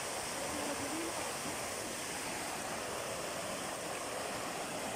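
Water rushing steadily: a waterfall pouring into a pool and a creek running over rocks.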